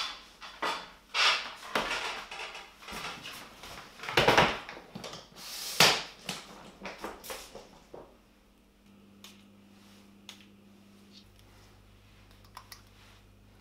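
A suitcase being handled and moved: a run of knocks, clatter and scrapes over the first eight seconds, loudest about four and six seconds in, then only a few faint ticks.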